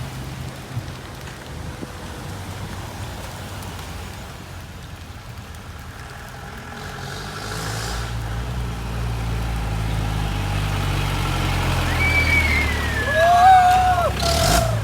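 An off-road 4x4's engine rumbling, growing louder from about halfway through as it comes closer. Near the end there is a short high-pitched call that slides up and then down.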